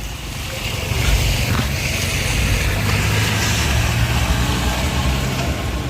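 A motor vehicle's engine running, a low steady drone that grows louder about a second in and holds, over a steady hiss.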